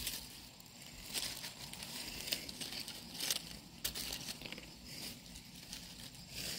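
Dry fallen leaves rustling and crackling as a hand picks chestnuts up from the leaf litter, with a few short, sharp crackles at irregular moments.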